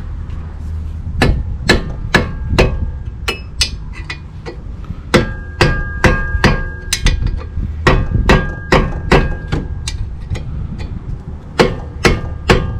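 Hand tools working on metal on the car's front brake assembly: a string of sharp, irregular metallic knocks and clicks, roughly two a second, with a brief metallic ring partway through.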